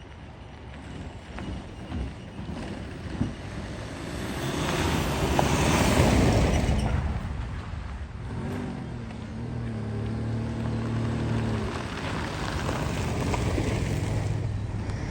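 Car on the move: engine and road noise swell to a peak about six seconds in, then settle into a steady engine drone.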